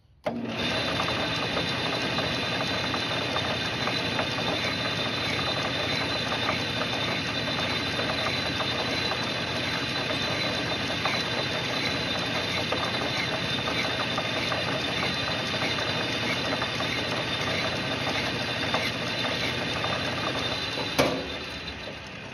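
Metal lathe switched on and running steadily with a high whine while the bolt in its chuck is worked by hand. About 21 seconds in there is a sharp clunk, and the lathe winds down.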